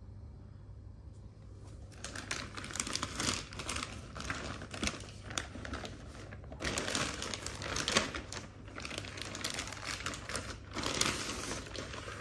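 Plastic drawstring carrier bag rustling and crinkling as it is opened and a shoe box is pulled out of it, starting about two seconds in, with many sharp crackles.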